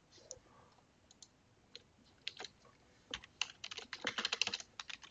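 Typing on a computer keyboard: a few scattered keystrokes, then a quick run of keystrokes from about three seconds in as a sentence is typed.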